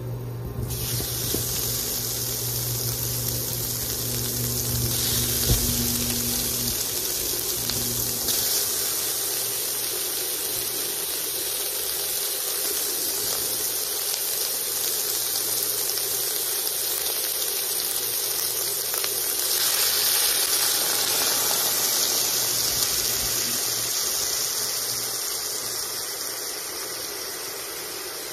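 Steady frying hiss from a wok as chopped pork cooks in hot oil and its own rendering fat, growing louder about two-thirds through.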